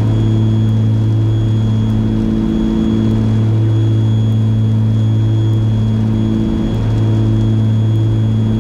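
Twin piston engines of a Piper Aerostar 700 running in cruise at about 2200 RPM, a steady drone heard in the cabin. The drone swells and fades about every three seconds, the beat of the two engines turning slightly out of sync.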